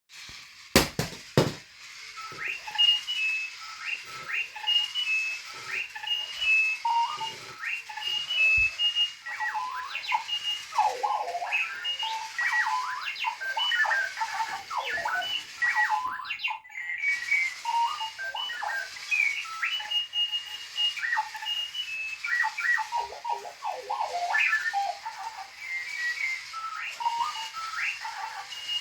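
Clocky robotic alarm clock sounding its alarm: a jumble of electronic beeps, chirps and warbling pitch glides, with a brief break about sixteen seconds in. A few sharp knocks about a second in.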